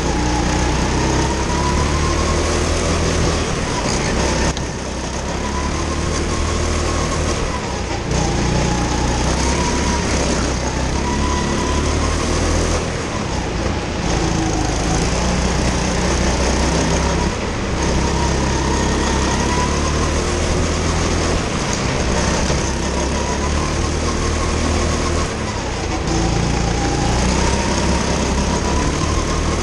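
Go-kart engine heard close up from the kart itself, revving up along the straights and easing off into the corners, the pitch rising and falling again and again, with short dips in loudness every few seconds.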